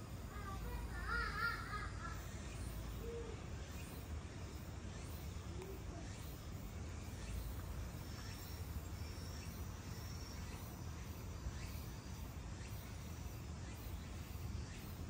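Quiet outdoor ambience with a steady low rumble. About a second in, a short call with a wavering pitch, and from about eight to ten seconds in, a few faint thin high tones.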